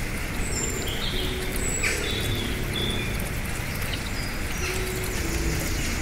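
Shallow rocky stream splashing over small cascades in a steady rush, with birds chirping short, high whistled notes over the water.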